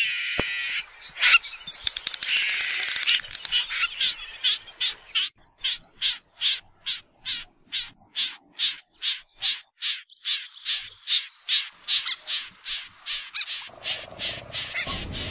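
Snipe calling: a dense patch of chirping for the first few seconds, then a long, even run of short, sharp calls, about two to three a second. A lower droning sound joins near the end.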